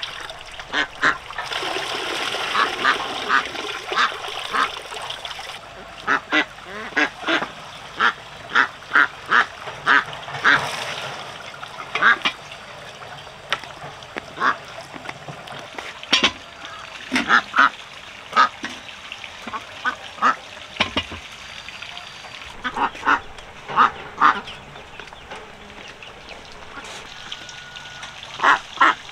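Ducks quacking in short, repeated runs of calls, with water splashing during the first few seconds.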